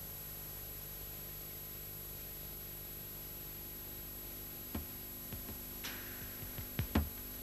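A steady hum and hiss, then drum hits entering about five seconds in, coming louder and closer together near the end as a music track starts.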